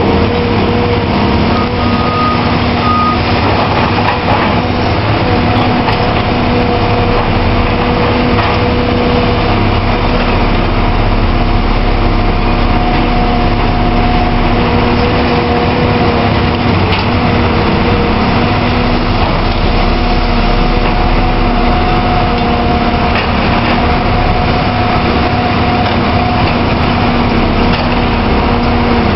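Caterpillar 345B L hydraulic excavator's diesel engine running steadily under working load, with steady tones that shift in pitch now and then as the machine works.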